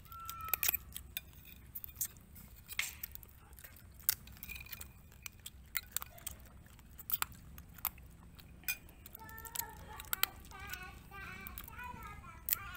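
Eating sounds: a metal spoon clinking and scraping against a plate, and crab being picked apart and chewed, heard as scattered sharp clicks and crunches.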